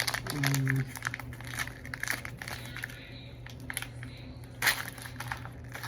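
Plastic wrapping crinkling and crackling as small toy pieces are unwrapped by hand, in irregular bursts with a sharper crinkle near the end.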